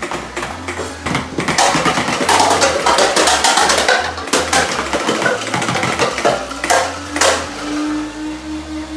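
A dense clatter of many light plastic cups knocked over and tumbling, over background music with a steady bass beat.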